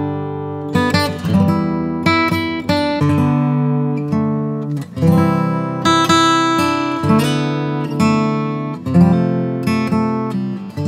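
Background music: strummed acoustic guitar chords, each struck and left to ring out.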